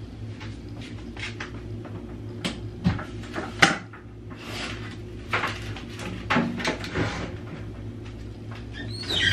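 Knocks and clatter of a countertop microwave and its power cord being handled on a kitchen counter: a series of separate clunks, the sharpest a little past three and a half seconds in, over a steady low hum. Right at the end a louder, bright sound with falling tones begins.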